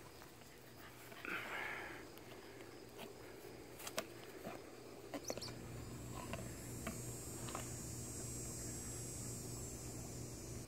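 A black Lab cross puppy sniffing at the grass and then mouthing a plastic frisbee. There is a short breathy sniff, then a few scattered sharp clicks and taps of teeth on plastic, over a faint high hiss in the later half.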